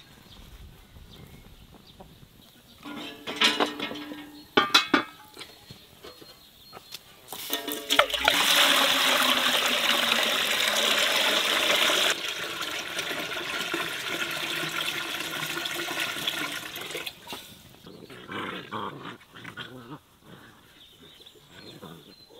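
Water poured in a thick stream into a large aluminium pot: a loud, even splashing starts about a third of the way in, then drops after about four seconds to a softer filling sound that runs on for several seconds more before it stops. Before the pour, a few short puppy yelps.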